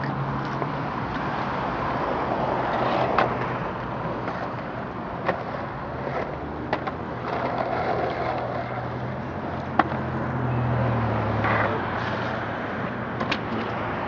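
Skateboard with quick-release wheels rolling over pavement: a steady rolling rumble with a handful of sharp clacks spread irregularly through it.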